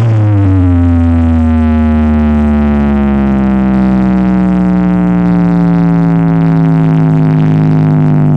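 A loud, sustained electronic drone from a big carnival sound system, one buzzing tone whose pitch sinks slowly and steadily.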